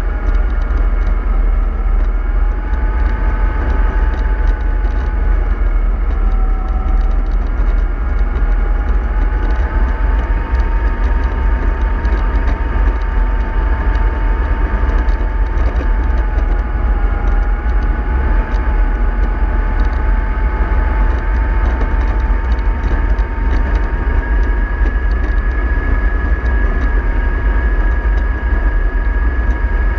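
MAN 24.310 bus running under way: a steady heavy low rumble with a whine that drifts slowly up and down in pitch.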